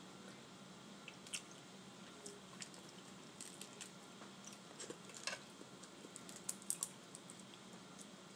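Boiled crawfish being peeled by hand: scattered small clicks and wet squishes as the shells crack and pull apart, the sharpest a few seconds apart near the middle and end, over a faint steady hum.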